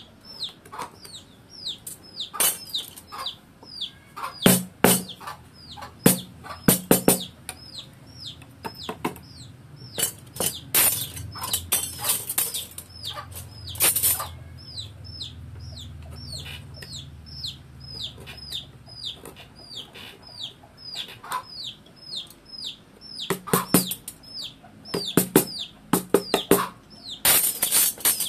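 Mallet striking a carving chisel in short clusters of sharp knocks as it cuts into hardwood. Under it, a chick peeps on and on, high and falling, about three times a second, and a low hum swells and fades in the middle.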